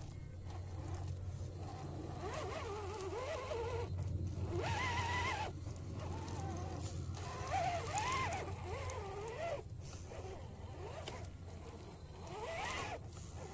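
Electric motor and gears of a scale RC crawler whining as it crawls up a rock ledge, the pitch wavering up and down with the throttle, in spells with short pauses. The whine is loudest about five and eight seconds in, over a steady low hum.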